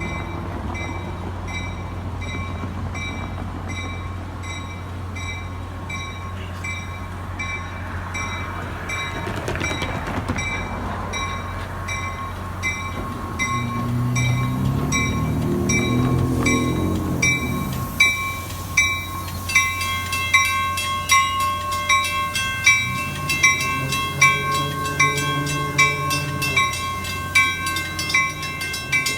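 NJ Transit commuter train pulling out, pushed by its GP40PH-2B diesel locomotive, with a steady low drone; a deeper pitched sound swells near the middle. From about two-thirds in, sharp regular strikes ring out roughly one and a half times a second.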